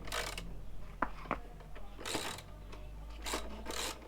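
A few short rasping, rubbing sounds, with two sharp clicks about a second in.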